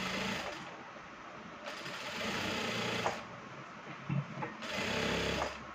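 Industrial sewing machine stitching a seam in short runs. It runs three times, stopping briefly between runs while the fabric is repositioned.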